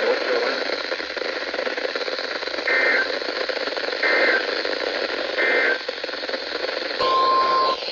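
Emergency Alert System tones heard through a hissing weather-radio receiver: three short buzzy SAME header data bursts, evenly spaced, then a click and the steady NOAA Weather Radio 1050 Hz warning alarm tone starting near the end, the signal that a warning message follows.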